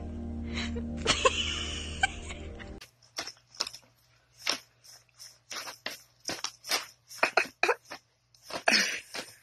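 Paper bag crinkling and rustling in short, irregular bursts as a cat rummages with its head inside it, with one louder burst near the end. It is preceded by about three seconds of steady background music.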